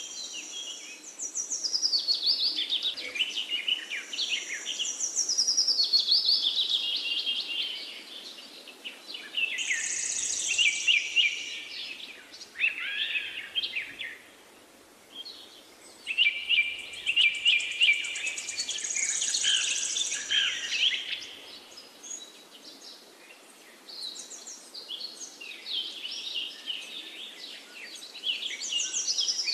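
Many small birds chirping and trilling together, their calls overlapping in waves with a short lull about halfway through.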